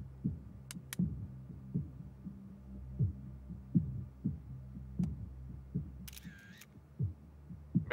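Suspense soundtrack: low, heartbeat-like thumps, one or two a second, over a steady low drone. A few faint clicks sound about a second in and again near the end.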